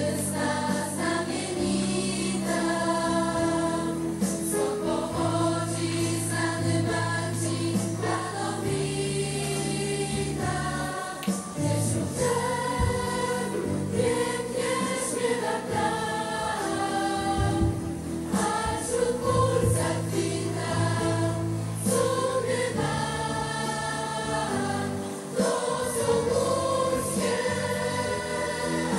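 Choral music: a choir singing slow, held chords that change every second or two.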